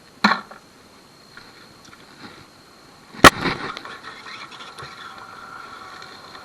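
Railroad spikes and a magnet being handled, metal on metal: a soft knock at the start, then a single sharp clank about three seconds in, followed by scraping.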